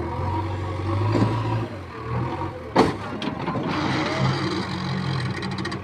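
Diesel engine of heavy earth-moving machinery running steadily, with a sharp clank about three seconds in, followed by a couple of lighter knocks.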